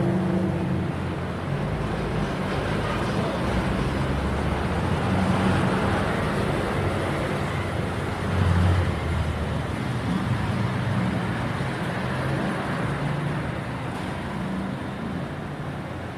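Road traffic noise: a steady rumble of passing motor vehicles, swelling briefly louder about eight seconds in.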